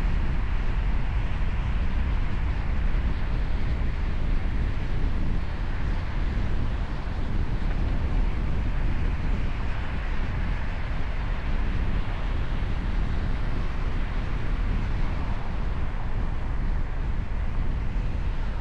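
Steady road and wind noise from a moving vehicle, with no horn or other sudden sound standing out.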